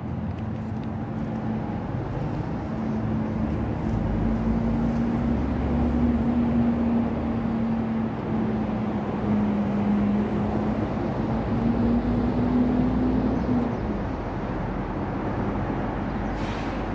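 A vehicle passing with a steady droning hum that wavers slightly in pitch. It swells through the middle and stops about fourteen seconds in, over a low rumble.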